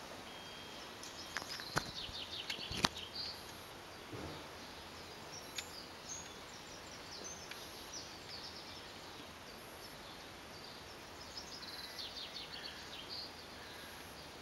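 Small birds chirping in quick high series, in two spells, over steady outdoor background noise, with a couple of sharp clicks about two and three seconds in.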